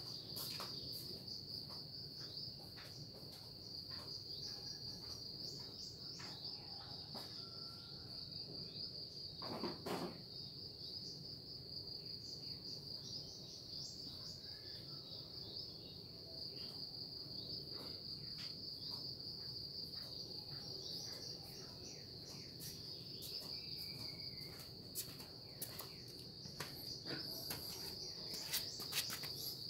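Faint, steady high-pitched insect trilling, cricket-like, with scattered light clicks and a short rustling noise about ten seconds in.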